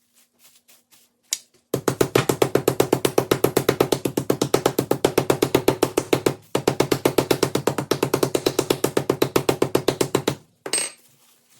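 Raw boneless chicken breasts under plastic wrap being pounded thin: a fast, even run of thumps, about eight or nine a second, with a short break about halfway and a stop near the end.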